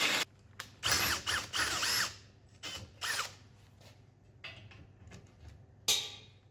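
A handheld power drill run in short trigger bursts, its motor whine rising and falling each time, with small clicks and knocks of the work in between.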